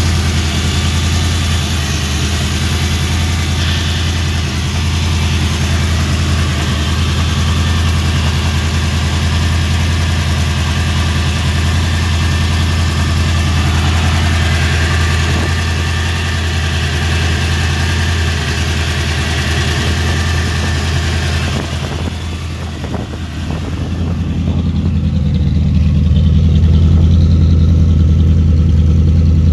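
Chevrolet Monza's swapped-in V8 idling steadily. It is heard first over the open engine bay, with plenty of mechanical noise above the low engine note; about three-quarters of the way through, the sound shifts to the tailpipe, where the deep exhaust note is louder and the high noise drops away.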